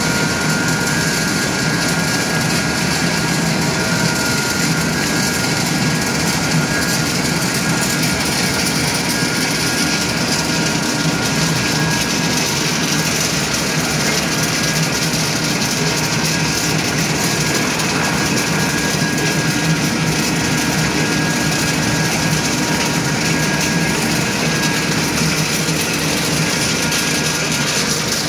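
YULONG XGJ850 biomass pellet production line running at full work: the pellet mill's drive and the conveyors make a loud, steady mechanical din with a constant low hum and a thin high whine over it, while pellets are being pressed and carried off.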